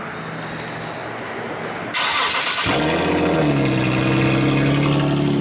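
Nissan 370Z's 3.7-litre V6 cranked by the starter about two seconds in, catching, flaring briefly and settling into a steady idle through a freshly installed Tomei exhaust.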